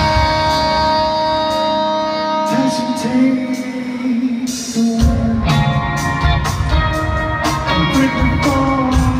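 Live band music heard from the audience: long held chords at first, then the bass and drums come back in about five seconds in and the full band plays on.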